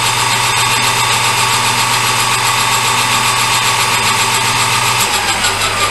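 Metal lathe running while facing a brass workpiece: a steady motor hum with a fine hiss above it. The low hum drops a little about five seconds in.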